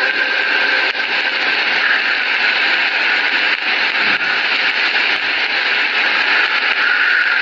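Steady, loud hiss and crackle of an old, narrow-band recording of the Islamic call to prayer, heard in a pause between the muezzin's phrases.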